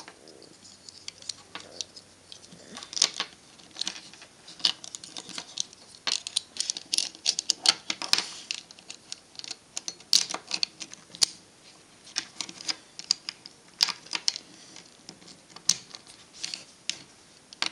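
Small plastic pieces of a LanLan 2x2 puzzle cube clicking and clattering irregularly as they are picked up and pressed into place around the core.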